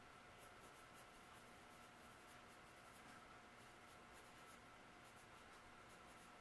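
Faint scratching of handwriting on paper, short intermittent strokes as an item is written onto a game record sheet, over a faint steady electrical hum.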